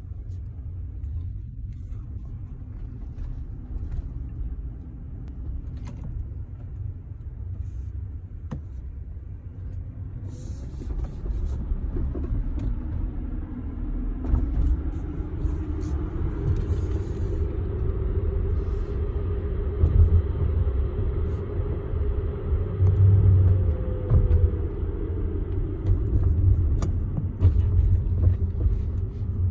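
Tesla Model X driving over a stone road: steady low tyre and road rumble with irregular short knocks, the knocking noise that is the owner's complaint. An electric-motor whine comes in about twelve seconds in and rises in pitch as the car speeds up.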